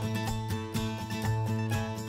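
Background music with plucked acoustic guitar in a country style.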